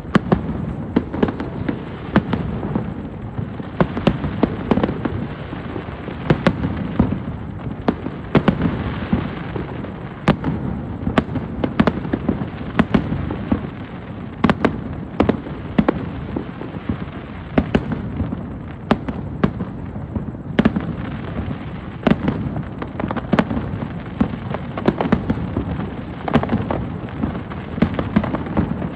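Fireworks show in full barrage: shells bursting without pause, sharp bangs every second or so over a continuous rumble of further bursts.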